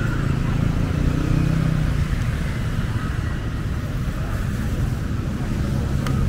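Street ambience dominated by a steady low rumble of motor traffic, with an engine hum rising and fading near the start and again near the end, and faint chatter of people.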